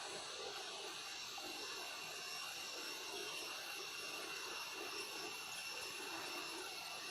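Steady background hiss with faint, steady high-pitched tones running under it.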